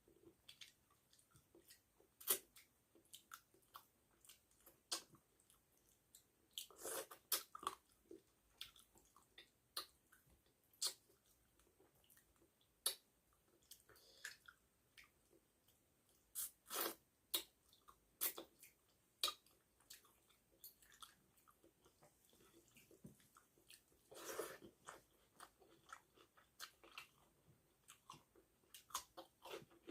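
A person chewing and eating rice and fish curry close to the microphone: faint, scattered wet mouth clicks and smacks, with a few louder bursts of chewing.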